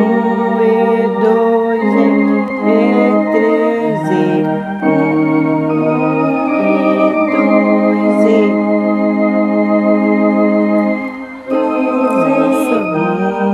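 Electronic home organ playing a hymn in triple time, with held chords that change every second or two. The sound drops briefly about eleven seconds in, then the playing carries on.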